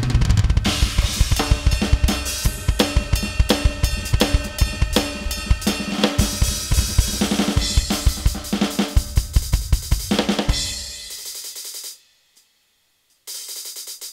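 Drum solo on an electronic drum kit: a busy funk groove of kick, snare, hi-hat and cymbal hits, spiced up with fills. The playing stops about twelve seconds in, with the cymbals ringing away. After about a second of silence, a steady, even run of fast strokes starts.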